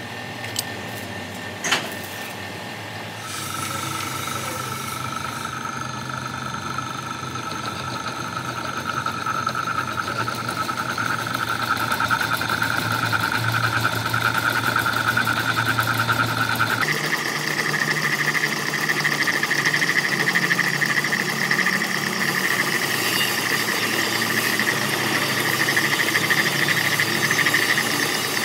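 A heavy lathe turning a large steel rotor shaft: a steady low machine hum with a high, steady whine from the cut. A click comes near the start, and about halfway through the whine jumps abruptly to a higher pitch.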